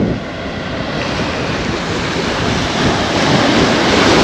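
Steady rushing outdoor noise that grows a little louder about a second in, with no voices.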